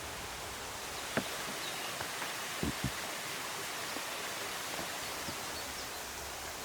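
Steady rushing outdoor ambience, like a forest stream or wind in the trees, with a few soft clicks, one about a second in and two close together near three seconds in.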